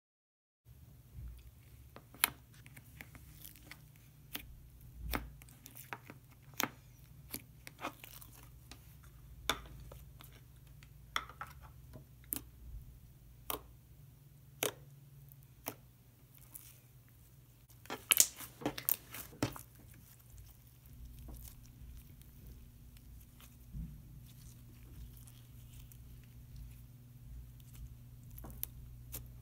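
Hands pressing, poking and squishing a thick teal slime, giving scattered sharp clicks and pops, with a quick run of the loudest pops about two-thirds of the way through. A low steady hum sits underneath.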